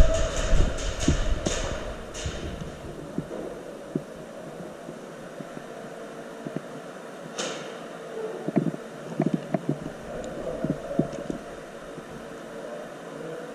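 Steady hum of a large indoor hall, with a run of light clicks in the first two seconds, one sharp click a little past seven seconds, and scattered soft thuds a few seconds later.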